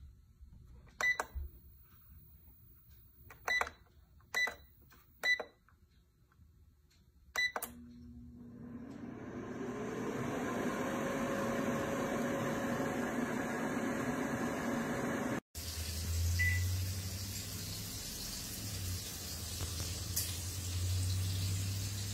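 Copper Chef 2 QT air fryer's control panel beeping five times as its buttons are pressed, then its fan starting up with a whine that rises in pitch over a couple of seconds and settles into a steady running hum. After a brief dropout, a lower steady hum with hiss.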